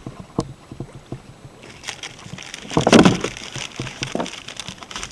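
Light knocks of gear being handled on a kayak, then from about two seconds in a rush of sloshing water that peaks about three seconds in.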